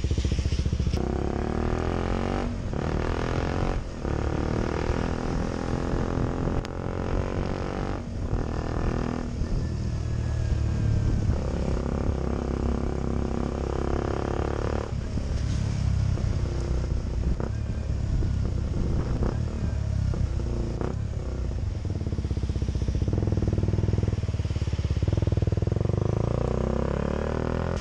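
KTM Duke 125's single-cylinder four-stroke engine running under way, its note rising and falling with the throttle, with a few short breaks in the first ten seconds as gears change.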